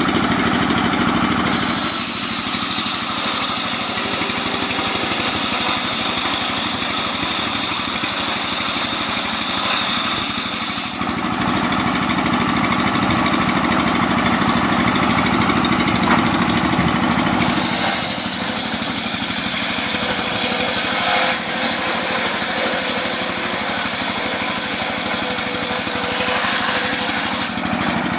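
Engine of a homemade sawmill running steadily, with a high hissing cut added for two stretches of about ten seconds each as the saw blade goes through a coconut trunk.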